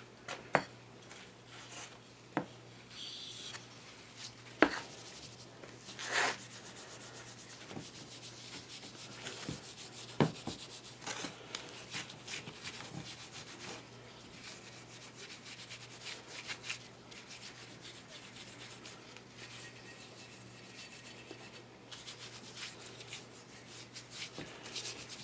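Steel wool scrubbing a small metal lathe part by hand, a faint scratchy rubbing, broken by a few sharp knocks as the part is handled.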